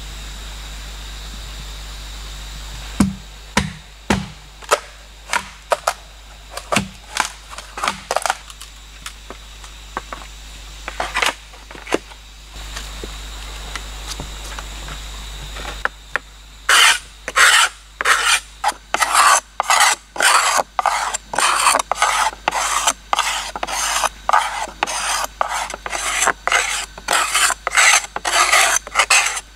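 Machete blade scraping the skin off a bamboo pole in quick, rasping strokes, about two a second, from about halfway in. Before that come scattered single strokes and knocks.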